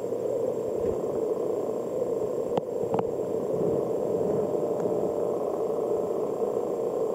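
Steady, muffled water noise picked up by a camera held or mounted underwater as it moves through an eelgrass bed, with two faint clicks about two and a half and three seconds in.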